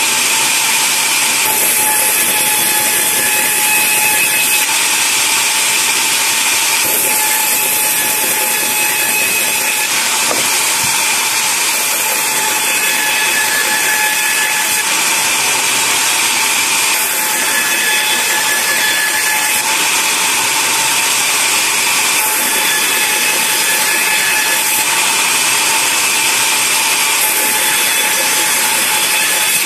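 Band sawmill running steadily and loudly, a constant noise with a steady high whine on top.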